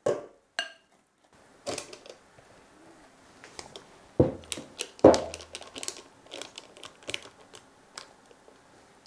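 Silicone spatula scraping cake batter out of a glass mixing bowl into a metal springform pan and spreading it, giving soft clicks and taps against the bowl and the pan, with two louder knocks about four and five seconds in.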